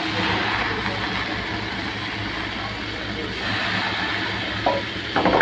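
Marinated pomfret sizzling in hot coconut oil in a pan, over a steady low hum, with a couple of short clatters near the end.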